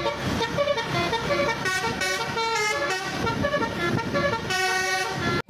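Musical multi-tone vehicle horn playing a quick tune of shifting notes, which cuts off abruptly near the end.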